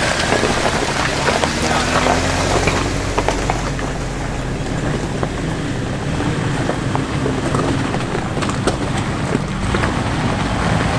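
Off-road vehicle's engine running steadily at low speed as it crawls up a rough dirt trail, with scattered knocks and rattles over the bumps.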